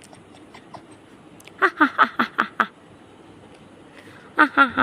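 A small dog yapping in two quick runs of short, high yips, five or six in a row about a second and a half in, then three or four more near the end.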